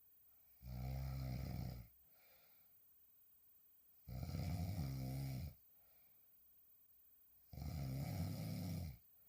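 A woman snoring loudly while sleeping on her back: three snores, each a low buzzing sound about a second and a half long, coming about every three and a half seconds, with a faint breath just after the first.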